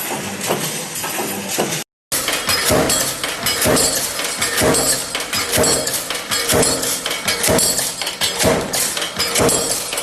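Factory work making repeated clinking impacts, about one and a half strikes a second, after a brief dropout about two seconds in.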